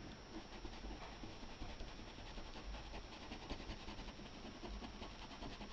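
Paintbrush scrubbed quickly back and forth over fabric to blend in paint: a faint, rapid, scratchy rubbing.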